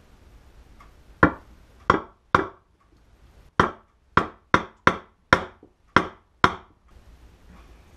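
Hammer striking a 13/16 socket to drive a new kickstart oil seal home into a Honda CB350 engine side cover. Ten sharp metal strikes: three spread out, a short pause, then seven in quicker succession.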